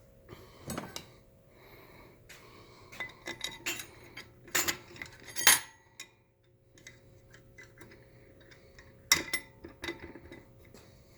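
Metal clinks and knocks as the long through-bolts are slid into a small electric motor's housing and end bell during reassembly. The knocks are irregular, with the loudest about halfway through and another near the end.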